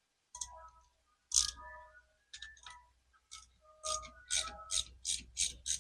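Hand ratchet wrench working a bolt on motorcycle handlebar riser hardware: a few separate metal clinks, then from about four seconds in a steady run of ratchet clicks, about three a second.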